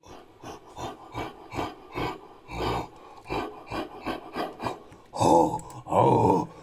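Made-up ape-creature vocal sound effect, built from a human voice and ape recordings: a quick run of short rhythmic huffing grunts, about two or three a second, then two loud, drawn-out calls with an arching pitch near the end.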